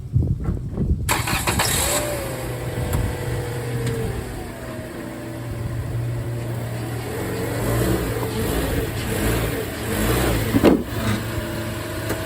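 2017 Toyota Corolla's four-cylinder engine starting about a second in, then running at low revs with small rises and falls in pitch. A short knock comes near the end.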